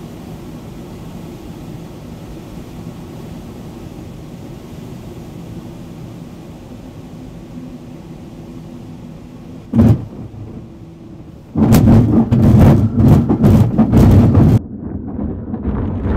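Steady airflow noise inside the cockpit of a Pipistrel Taurus motorglider gliding in low with its motor stowed. About ten seconds in there is a single thump as the wheel touches down, and then for a few seconds the wheel rolls over rough grass with loud, uneven rumbling and knocking.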